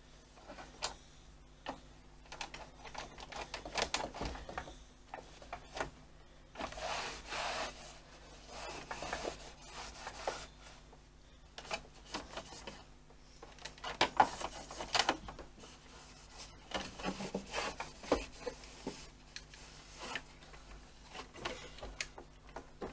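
A damp cloth wiping over a sewing machine's body and its carrying-case base: irregular rubbing swishes mixed with occasional light knocks and clicks as the hand works around the machine.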